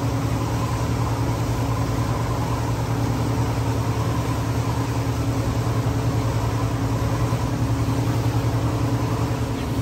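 Motorboat engine running steadily under way, a low even hum, with the rush of water from the wake.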